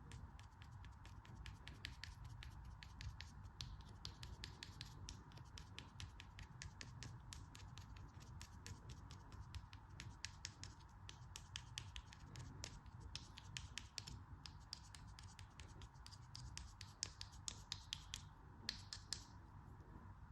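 Faint, dense crunchy crackling: many small sharp clicks a second, uneven, from a dry crumbly material such as soap or kinetic sand being cut or crushed. A faint steady tone runs underneath.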